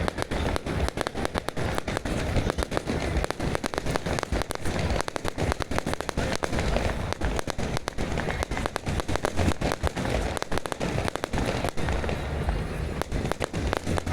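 Fireworks going off in a dense, unbroken run of rapid crackling and banging.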